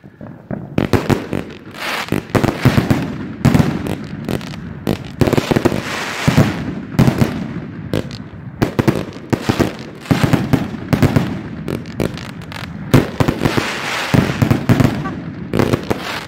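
A consumer fireworks cake firing in quick succession: a dense, irregular string of launch thumps and bursting bangs, several a second, starting about a second in.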